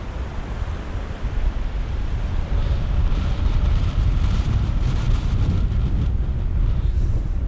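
Strong wind buffeting the microphone while riding: a heavy, gusting rumble that grows louder about three seconds in.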